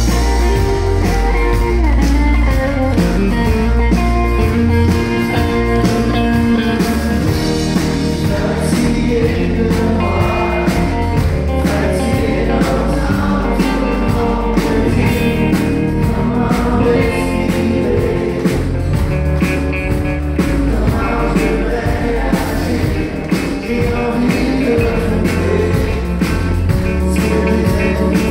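Live country band playing: a man singing over acoustic and electric guitars and a drum kit, with a steady beat.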